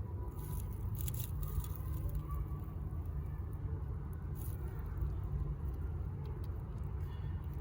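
Steady low background rumble, with a few faint, brief rustles of newborn rabbits shifting in their nest.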